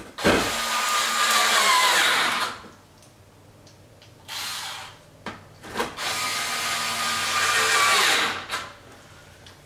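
Cordless drill-driver running in the splitter's screws: two runs of a few seconds each and a shorter one between them. Its pitch drops toward the end of each run as the screw seats.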